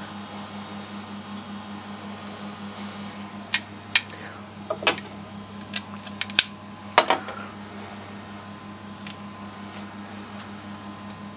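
Metal tongs clicking and knocking against the griddle plate, a cluster of sharp taps between about three and seven seconds in, over a steady low hum.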